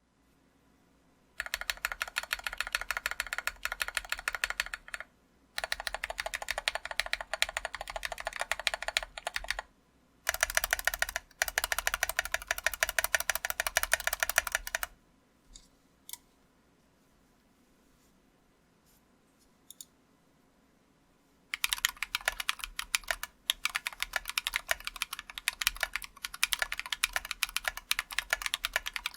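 Typing on a MelGeek Mojo65 mechanical keyboard with lubed Glorious Panda tactile switches and MA-profile keycaps: rapid runs of keystrokes. The typing breaks into a few single key presses between about 15 and 21 seconds in, then resumes.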